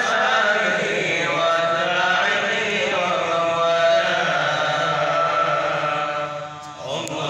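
A man chanting Arabic religious verse into a handheld microphone: long, melodic held notes that bend in pitch. He breaks briefly for breath near the end, then carries on.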